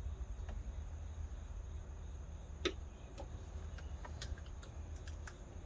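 Several light clicks and taps of hands working spark plug wire clips and brackets in an engine bay. The loudest click comes a little before halfway. Under them are a low steady hum and a faint high chirp repeating about three times a second.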